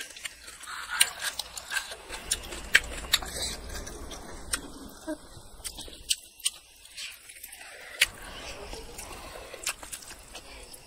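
Close-up eating sounds: wet, irregular clicks and smacks of chewing, and fingers squishing and mixing rice on a plate.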